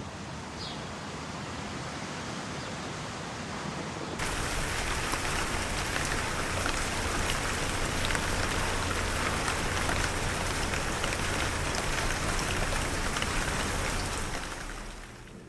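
Steady rain falling, an even hiss of drops that gets suddenly louder about four seconds in and fades out near the end.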